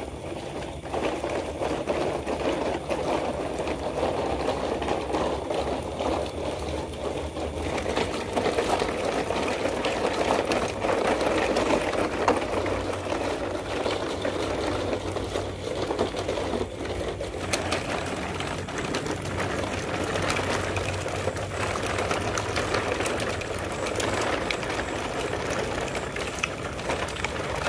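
Plastic toy dump trucks rolling over loose river pebbles, the stones clattering and crunching under the wheels in a continuous dense rattle of small clicks.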